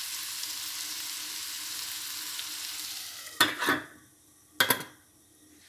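Zucchini and potato pieces sizzling steadily in oil in a stainless steel pan. About three and a half seconds in, a pan lid knocks down onto the pan, with a second clink about a second later. Under the lid the sizzle goes nearly silent.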